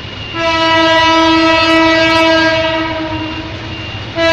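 Train horn sounding one long blast of about three seconds that fades toward its end, then a second blast starting just before the end: a train whistling for a level crossing as it approaches.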